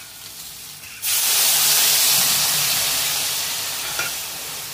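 Water poured into a hot kadhai of oil-fried spices for sambar, bursting into a loud steaming hiss about a second in that slowly dies down.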